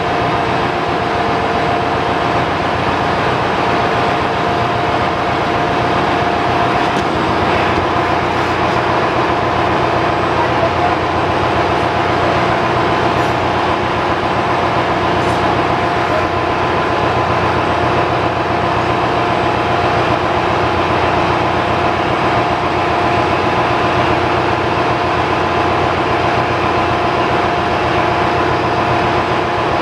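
Steady, loud drone of engine-room machinery, the running marine diesel generators and ventilation, with a steady whine on top.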